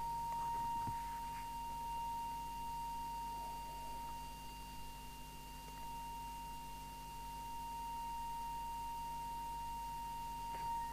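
Steady 1 kHz test tone, a single unwavering pitch, the modulating audio used while the CB transmitter's FM deviation is being set.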